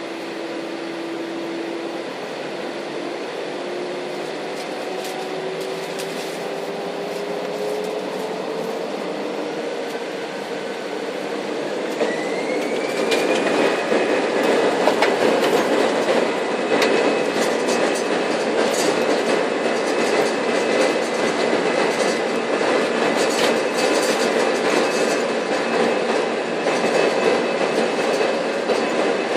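Airbus A318's twin jet engines heard from inside the cabin spooling up to takeoff thrust, with a whine rising slowly in pitch. About twelve seconds in a higher whine climbs and holds, and the rumble of the takeoff roll gets louder, with rattles and bumps from the cabin and runway.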